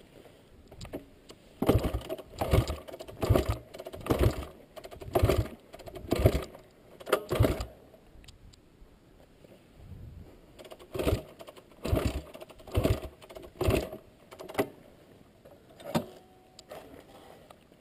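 A dirt bike with its engine off being worked by hand, giving short clattering strokes about one a second in two runs with a pause between them.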